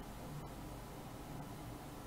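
Faint, steady hiss with a low hum underneath: room tone, with no distinct events.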